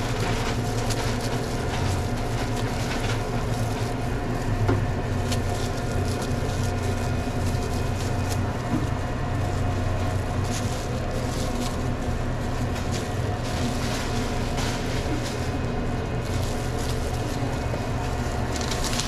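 Steady low machine hum holding several constant tones, with scattered light clicks and handling noises over it.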